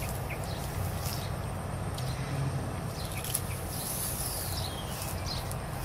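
Rural outdoor ambience: scattered short bird chirps and a high insect buzz that swells about four seconds in, over a steady low rumble.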